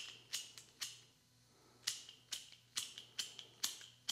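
Flint wheel of an old Storm King flip-top wick lighter being thumbed over and over: about eight short, sharp strikes roughly half a second apart, with a pause of about a second near the middle. The lighter sparks but does not catch, having been filled with a fluid not meant for it.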